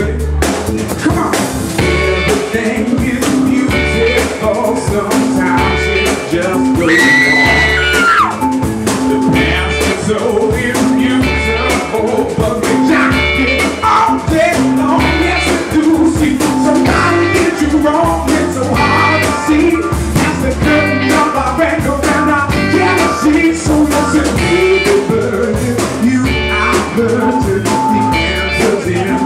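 Live soul band playing, with electric guitar, bass and drum kit keeping a steady beat and a singer's voice over them. A high note slides downward about seven seconds in.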